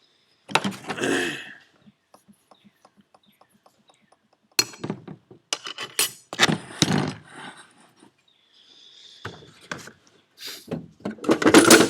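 Metal clinks, scrapes and clatter of a steel C-clip being fitted into a turbocharger's compressor housing, in several separate bursts, with a run of faint quick ticks, about five a second, between them early on.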